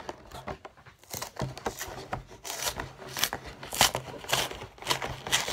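Cardboard Pokémon trading-card collection box being pried open by hand from the back: a run of short scraping, rustling strokes of cardboard rubbing and tearing, coming more often after the first couple of seconds.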